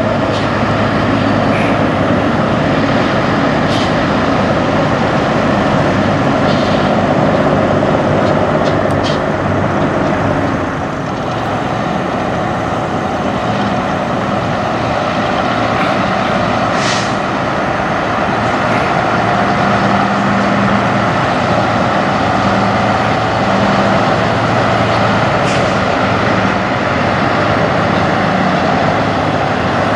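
Semi-truck diesel engines running steadily as tractor-trailers drive slowly past, with a few short hisses, the clearest about 17 seconds in.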